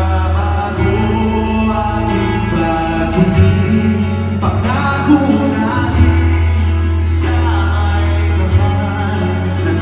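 A man singing live into a handheld microphone over amplified music through the stage PA, with a strong, steady bass line under the voice.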